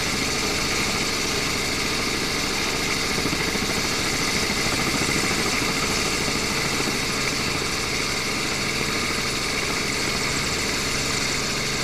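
Quadcopter drone's propellers and motors whining steadily while it hovers, a layered hum of several unchanging tones.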